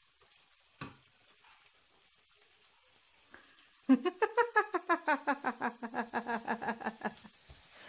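Faint sizzle of onions and bacon fat frying in a pan. About four seconds in, a man's voice breaks into a quick run of short pitched syllables, about five a second, sliding down in pitch over some three seconds.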